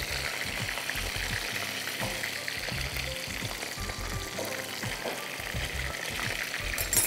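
Creamy mushroom white sauce sizzling and spattering in a hot pan as it cooks down, with a sharp clatter near the end.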